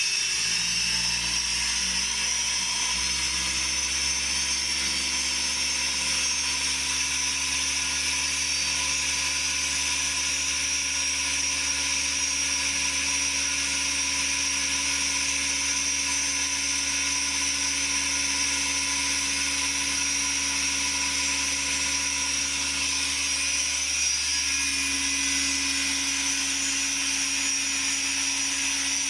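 Home-made pendulum circular saw driven by a washing-machine motor, running steadily with a high whine. Its pitch settles in the first couple of seconds after start-up, and a low tone shifts about 24 seconds in.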